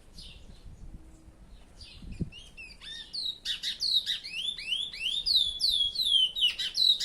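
Chestnut-bellied seed-finch (curió) singing: a few soft notes, then from about three seconds in a fast, loud run of down-slurred whistles.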